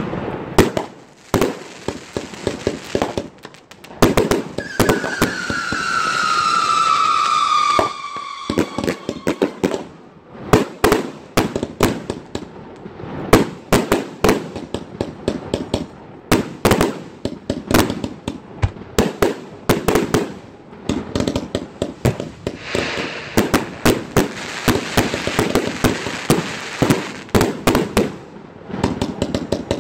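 A 168-shot firework cake firing a rapid, continuous barrage of launches and aerial bursts, shot after shot. From about four to eight seconds in, a whistle falls slowly in pitch over the shots. Later there is a stretch of steady hiss among the bursts.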